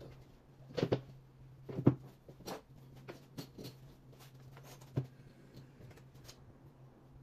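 Knocks and light clatter of particleboard furniture panels being handled and set down on a table, a few separate knocks with the loudest about two seconds in, over a low steady hum.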